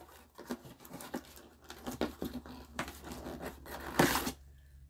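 Cardboard toy box being handled as its cardboard insert is pulled out: rustling, scraping and small knocks, with one loud cardboard scrape about four seconds in.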